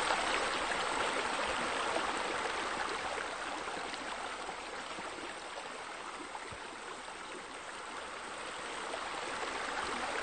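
Steady rushing of running water, like a stream or splashing fountain. It eases a little midway and swells again near the end.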